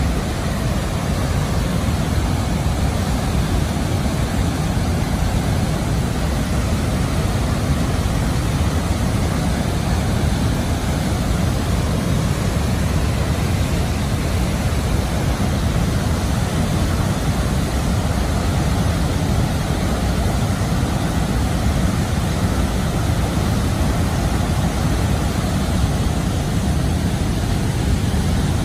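The Nile's rapids and falls at Murchison Falls: heavy white water rushing, a steady deep noise that does not change.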